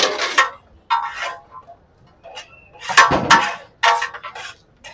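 Metal clatter of a steel scoop scraping and knocking inside a large aluminium biryani pot, with steel plates clinking: four or so sharp bursts, with a brief ring after one of them.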